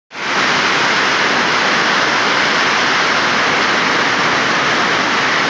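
Heavy rainstorm: a steady downpour with wind.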